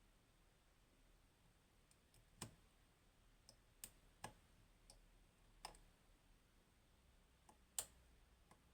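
Lock pick working the pins of a Goal Grand V, a 24-pin Japanese high-security lock: a handful of small, sharp clicks at irregular intervals, the loudest about two and a half seconds in and again near the end, against near silence.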